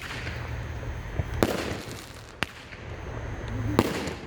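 A 200-gram consumer fireworks cake, Pyro Demon's Kick Ass, firing its shots: three loud sharp reports, at the start, about a second and a half in and near the end, with fainter pops between them.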